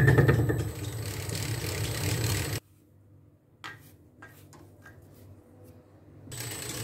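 Homemade lathe running, its chuck-driven single-point cutter cutting teeth into a gear blank with a rapid regular ticking at first, then steadier running. About two and a half seconds in the sound cuts off abruptly to near quiet, with a few faint brush strokes sweeping chips off the work, and the machine running comes back near the end.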